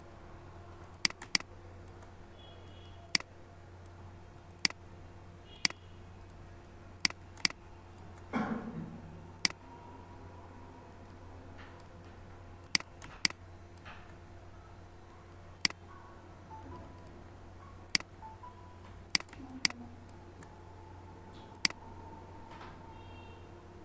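Computer mouse button clicking: about fifteen sharp single clicks at uneven intervals, some in quick pairs, each placing a pen tool anchor point. A steady low hum runs underneath, and a brief low voice sound comes about eight seconds in.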